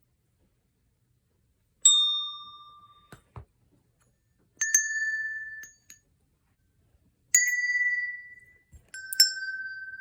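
A chime struck four times, a few seconds apart. Each strike gives a clear ringing note at a different pitch that starts sharply and fades out over about a second.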